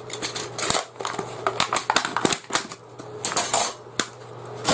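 Packs of tent pegs being handled, giving a quick irregular run of light clicks and clatters.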